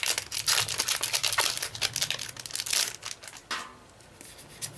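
Foil booster pack wrapper crinkling as it is torn open, a dense crackling for about three and a half seconds that then drops away to a few soft rustles of the cards.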